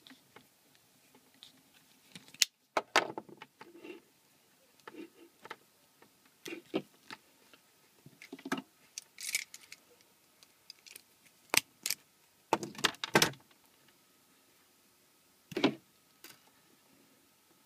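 Wire cutters snipping and scraping at an IEC kettle lead's cable as its sheath and insulation are stripped, with handling clicks and rustles close to the phone's microphone. The sounds come as irregular sharp clicks and short scrapes.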